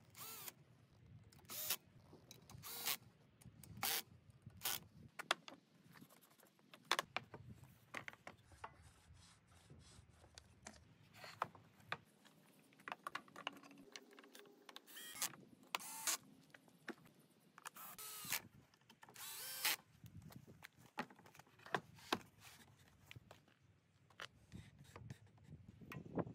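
Cordless drill-driver running in short bursts as it drives screws, with clicks and knocks of parts and tools being handled in between.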